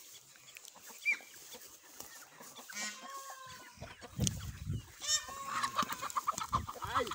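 Chickens clucking and calling, with two drawn-out calls about three and five seconds in and a few low thumps near the middle.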